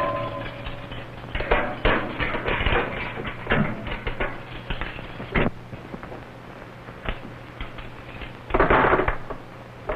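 A ring of keys jangling and the lock and bars of a jail-cell door clicking and rattling, in a quick series of metallic clicks that ends in a sharp clank about five seconds in. Near the end comes a brief, louder scraping rustle, over a steady low hum.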